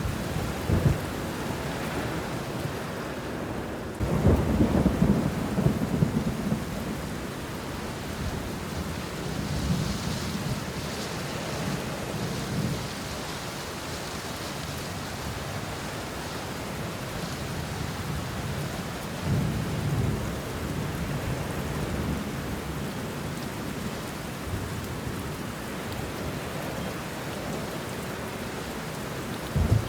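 Steady rain falling on banana leaves and bushes, with rumbles of thunder. The loudest roll of thunder comes about four seconds in and lasts a few seconds, and a softer one comes about two-thirds of the way through.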